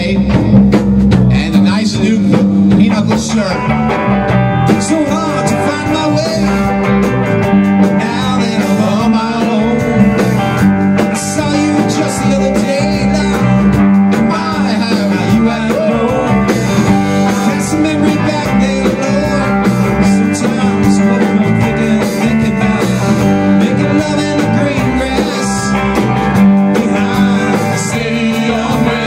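Rock band playing loud live in a small room: two electric guitars, one a Les Paul–style and one a Stratocaster-style, with bass guitar and a Tama drum kit.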